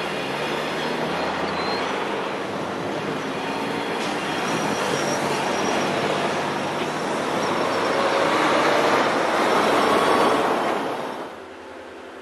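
A freight train of grain hopper cars rolling past, its wheels running on the rails, mixed with cars and a semi truck passing on the road close by. The noise builds to its loudest a little before the end, then drops away suddenly.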